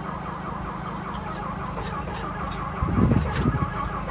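Leopard tank's diesel engine running steadily after a cold start. There is a louder, rougher surge about three seconds in, and sharp clicks throughout.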